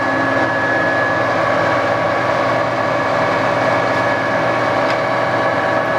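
TOS SN50 engine lathe's geared headstock running under power at a steady spindle speed: a constant mechanical gear whine with several held tones.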